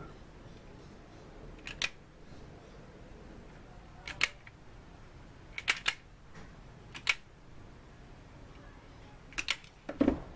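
Sharp clicks of an automatic wire stripper's spring-loaded jaws snapping shut and open as the insulation is stripped off a thin wire: a handful of separate clicks a second or two apart, some in quick pairs.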